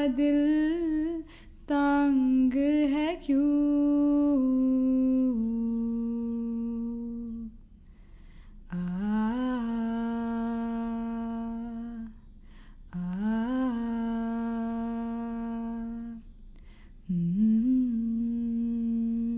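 A woman's solo voice humming a slow melody without accompaniment, in long held notes, several of which she slides up into, with short pauses for breath between phrases.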